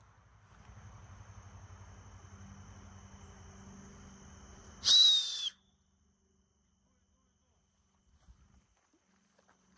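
Rustling movement through brush under a steady high insect drone. About five seconds in comes a short, loud whistle that falls in pitch, and after it the sound drops almost to nothing.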